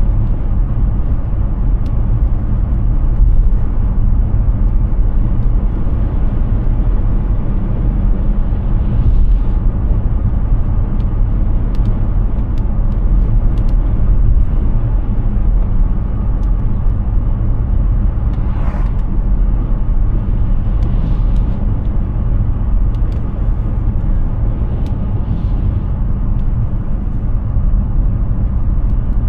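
Steady low rumble of tyre and road noise from a Hyundai Ioniq 6 electric car driving at speed, with no engine note. A few brief hissing swells come and go, about four times.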